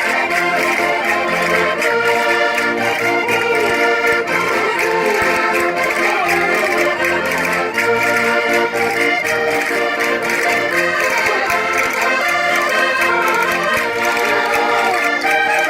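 Portuguese concertinas (diatonic button accordions) playing a lively Minho folk dance tune with a steady beat.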